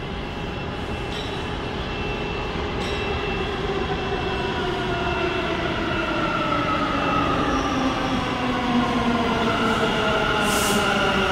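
New York City subway train pulling into a station, growing louder, with a whine that falls in pitch as it slows and a steady high squeal. A brief hiss comes near the end.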